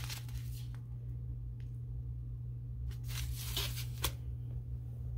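Plastic-and-foil tea pouch crinkling as it is handled, with a short burst at the start and a longer burst about three seconds in, ending in a light tap as it is set down, over a steady low hum.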